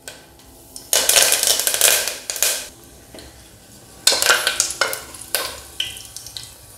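Curry leaves sizzling and spluttering as they hit hot oil in a pressure cooker, a loud burst of about a second and a half, followed by a wooden spatula stirring and scraping the leaves around the pot in a few short strokes.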